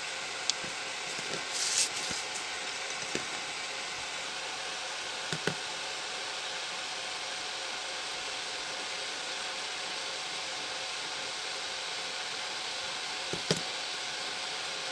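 Steady background hiss with a faint hum, broken by a few light clicks and knocks of small parts and tools being handled on a workbench: a short rustle about two seconds in, and the sharpest knock near the end.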